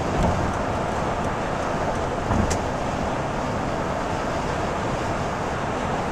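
Steady road noise inside a moving car's cabin, with its tyres on wet freeway pavement. There is a low thump about a quarter second in, and another followed by a sharp click about two and a half seconds in.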